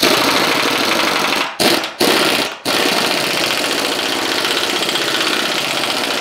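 Pneumatic impact wrench hammering, run in three bursts (a long one, a short one, then a longer one to the end) as it drives bolts home on a C-notch plate on a truck frame rail.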